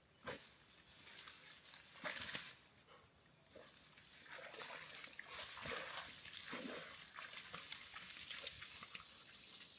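Faint snuffling from a dog, with scattered rustles and clicks, after two brief sharp sounds in the first couple of seconds.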